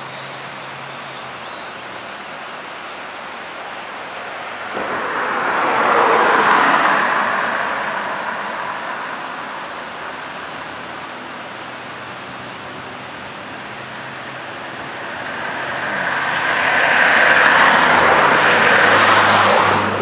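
Cars passing by on a road: tyre and engine noise swells and fades twice, once about six seconds in and again, longer, near the end, over a steady background hiss.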